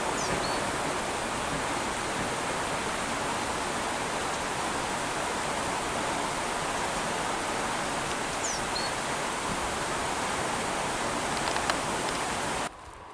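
Steady, even rushing of a mountain stream out of sight. A short high call sounds twice, near the start and about eight seconds in, and the rushing cuts off suddenly near the end.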